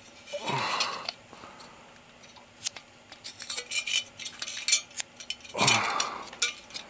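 Metal clinks and taps from the handling of a Cooler Master Hyper 212 EVO tower heatsink, its mounting bar and screws knocking against the frame as it is turned over in the hands, with two louder rustling swells of handling noise, one about half a second in and one near the end.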